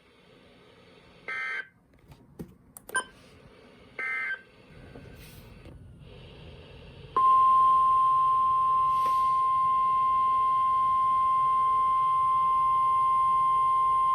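Emergency Alert System tones received over weather radio. Three short, fast-warbling data bursts, typical of the end-of-message code that closes an alert, come over faint static. About seven seconds in, the steady 1050 Hz NOAA Weather Radio warning alarm tone starts loudly and holds, announcing the next severe thunderstorm warning.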